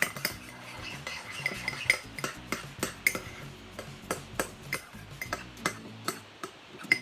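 A utensil repeatedly clinking and scraping against a bowl as a thickening body-wash-and-salt slime mixture is stirred. The sharp clicks come irregularly, about two or three a second.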